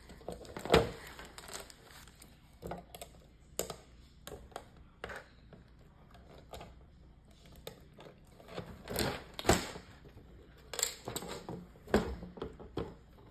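Plastic Lego pieces clicking and knocking as they are handled and pressed together: irregular scattered clicks, with a few louder knocks, one about a second in and others past the middle.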